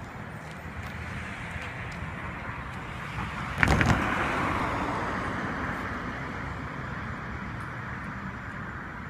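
Road traffic: a car passing the crossing with steady tyre noise. About three and a half seconds in there is a short clatter of sharp knocks, the loudest sound, followed by a swell of tyre hiss that slowly fades.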